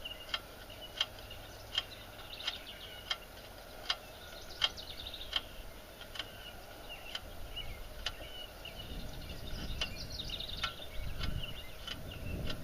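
Outdoor ambience with birds calling and a sharp tick-like chirp repeating about every three-quarters of a second. A low rumble rises in the second half.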